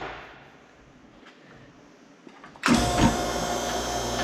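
Electric hydraulic pump of a CAT hose crimping press starts up about two and a half seconds in and runs steadily with a constant whine, crimping a fitting onto a hydraulic hose.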